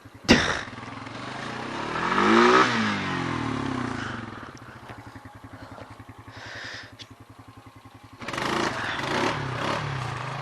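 Honda ATV engine revving up and back down, then running low with an even putter, and picking up again about eight seconds in; a sharp knock just after the start.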